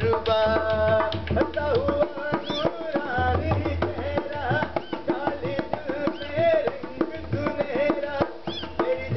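Live Indian folk music for a puppet dance: fast hand-drum strokes under a held, wavering melody line, with a few short high gliding squeaks over the top.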